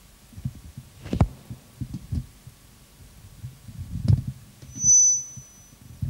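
Microphone stand being handled and adjusted, heard through the microphone: low rumbling and scraping with sharp knocks, the loudest about a second in and about four seconds in. A short high whine sounds about five seconds in.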